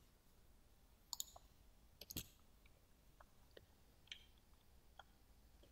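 Faint computer mouse clicks, about eight scattered over a few seconds, with a quick run of three about two seconds in.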